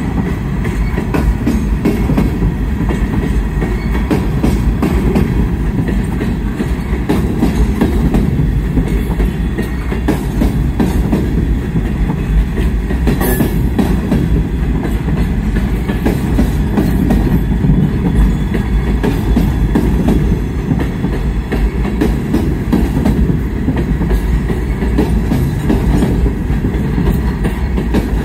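A long train of open-top hopper cars rolling past: a steady, heavy rumble of steel wheels on rail with quick clicks and clacks over the rail joints, and one sharper clank about halfway through.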